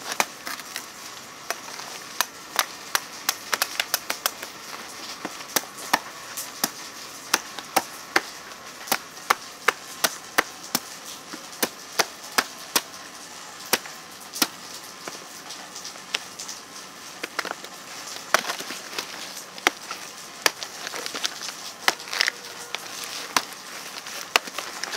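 A homemade saw-blade cleaver chopping through a banana plant's soft, fibrous trunk: a quick series of sharp chops, about two a second, growing fewer and softer near the end.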